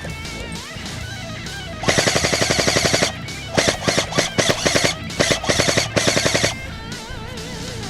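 Airsoft electric gun firing three full-auto bursts of rapid, evenly spaced shots, each a little over a second long, over background guitar music.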